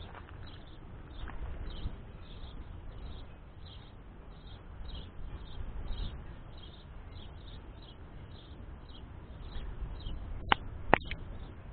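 Outdoor ambience on an action camera's microphone: a steady low rumble with faint high chirps repeating about twice a second. Two sharp clicks come about ten and eleven seconds in.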